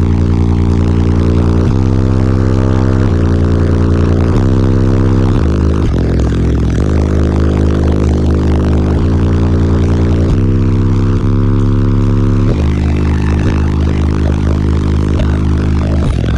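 Eight Concrete Audio C1 12-inch subwoofers on a Taramps T12000 amplifier playing a bass demo very loud. Sustained deep bass notes step to a new pitch every second or two.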